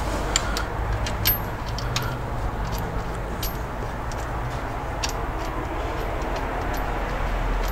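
Scattered light metallic clicks and taps as an idler pulley and its bolt are fitted back by hand among the engine's belt pulleys, over a steady low hum.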